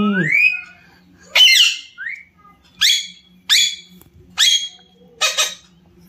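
Alexandrine parakeet giving a run of loud, harsh squawks. There are five calls, each sweeping down in pitch, starting about a second and a half in and coming roughly every three-quarters of a second, with a short chirp after the first.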